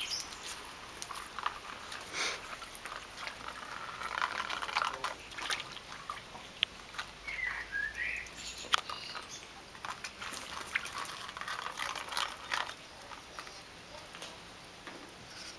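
Petit Brabançon puppies at play: light patter, clicks and scratching of paws and claws on paving and gravel, with a brief high squeak about eight seconds in.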